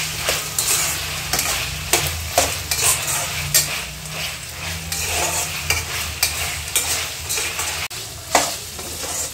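Boiled mutton pieces frying in hot oil in a non-stick kadhai, sizzling steadily while a slotted metal spatula stirs them, with irregular short scrapes and clicks of the spatula against the pan.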